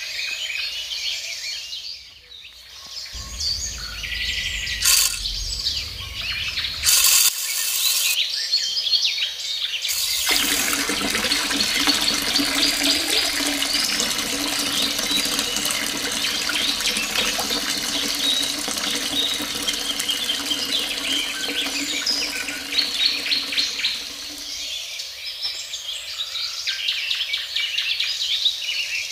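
Birds chirping throughout. From about ten seconds in, a small electric water pump hums steadily while water runs from its tube, and both stop abruptly about five seconds before the end. There are two sharp knocks in the first several seconds.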